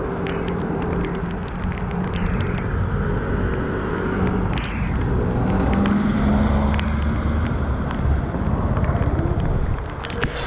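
Riding noise from a Weped Fold electric scooter moving along a wet road in the rain: a steady rushing hiss of wind and wet tyres with a low hum underneath and scattered sharp ticks. It swells in the middle and eases near the end.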